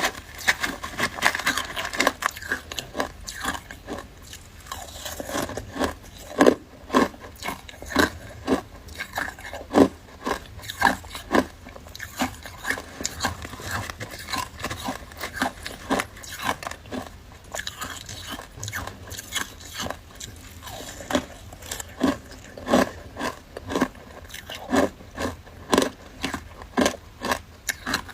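Ice being bitten and chewed: a continuous run of sharp, irregular crunches, several a second.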